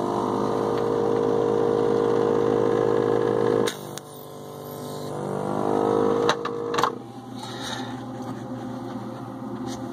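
Electric desoldering gun's built-in vacuum pump running with a steady whine as it sucks solder off a capacitor lead, cutting off about three and a half seconds in. It winds up again, then stops with a couple of clicks about seven seconds in.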